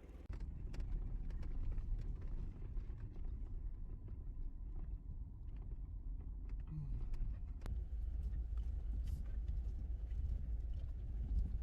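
Off-road vehicle driving over a rough dirt trail: a steady low rumble with scattered small clicks and knocks.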